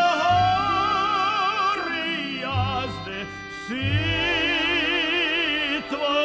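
Music: an operatic voice sings long notes with wide vibrato over orchestral accompaniment with deep bass notes.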